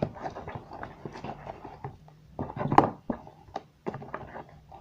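Hands handling slime: irregular small clicks and sticky pops, with a louder knock a little under three seconds in.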